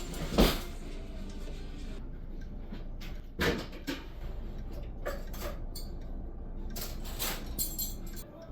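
Knocks and clinks of tableware being handled: a sharp knock about half a second in, another about three and a half seconds in, and lighter clicks later, over a steady low hum.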